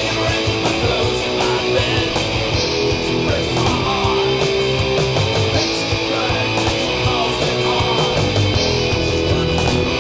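Rock music: guitars over a drum beat.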